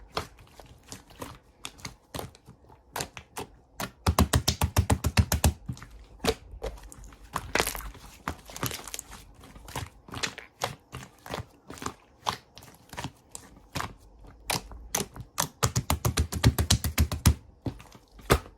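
Slime being squished and pressed by hand, giving a run of sharp clicks and pops. Twice it breaks into a fast string of popping, about four seconds in and again later on.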